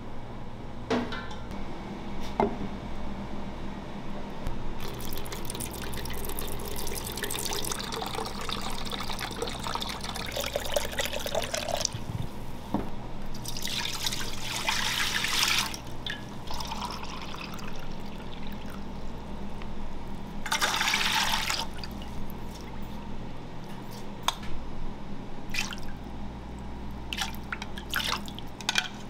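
Liquids poured in several goes into a large stainless steel pot, splashing and gurgling onto the liquid already in it, with the loudest pours about halfway and about two-thirds through. Short clicks and knocks of kitchen work come between the pours, over a steady low hum.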